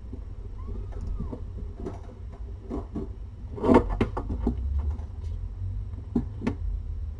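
Soft rustling and small knocks as newborn kittens shift and climb over each other on a knitted blanket in a nesting box, over a steady low hum. The loudest cluster of knocks comes about four seconds in, with a couple more about six seconds in.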